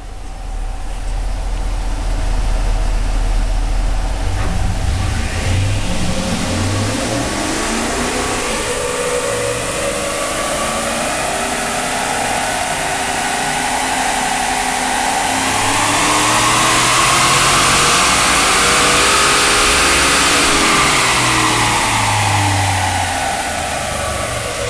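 Stock 2010 Ram 1500's naturally aspirated 5.7-litre HEMI V8 with stock exhaust making a full-throttle pull on a chassis dyno, the engine heat-soaked from two earlier passes. The engine note climbs steadily for about twelve seconds, is loudest at the top, then falls away over the last several seconds as the truck winds down.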